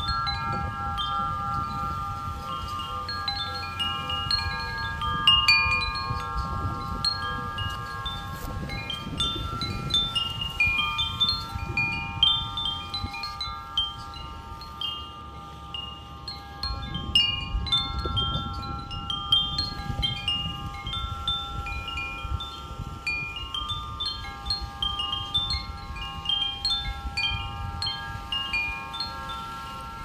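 Wind chimes ringing in the breeze: several long overlapping tones keep sounding while lighter, higher notes are struck irregularly throughout. A low, uneven rumble of wind on the microphone lies beneath.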